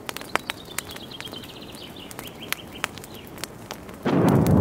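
Scattered sharp crackles with a quick, high, descending bird-like trill over the first three seconds, then a loud rumbling burst, like a blast, starting about four seconds in.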